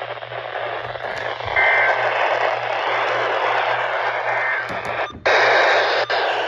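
NOAA Weather Radio receiving through heavy static: a steady hiss over a pulsing low hum, with faint snatches of the two-tone SAME data-burst header that opens a new alert. The hiss cuts out briefly a little after five seconds, then returns louder.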